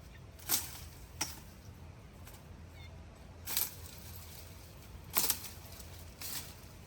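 A knife hacking through jungle undergrowth: five short, sharp chops and snaps of vegetation at uneven intervals.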